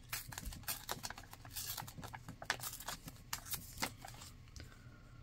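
Magazine paper crinkling and rustling in the fingers as a cutout is handled, a quick run of irregular crackles that dies down about four seconds in.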